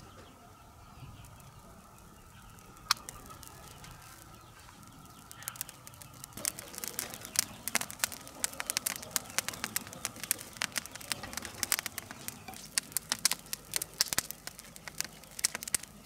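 Kindling fire of dry grass and twigs catching and crackling: a busy run of sharp pops that starts about five seconds in and grows denser. A single sharp click comes about three seconds in, before the crackling.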